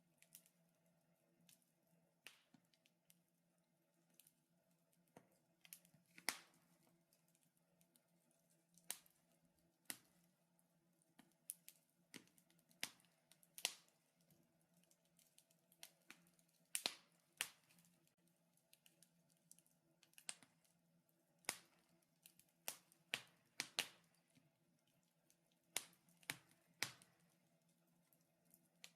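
Wood fire crackling in a fireplace: irregular sharp pops and snaps, a few every second or two, some much louder than others, over a faint steady low hum.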